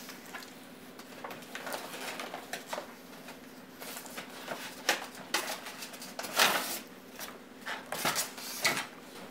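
Cardboard box and polystyrene foam packing being handled and pulled out: irregular rustling and scraping, with a few louder scrapes, the loudest about six and a half seconds in.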